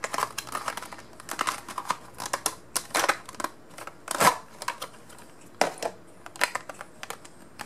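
A rigid clear plastic display case being handled and opened by hand: irregular plastic clicks and crackles, with louder snaps about three and four seconds in.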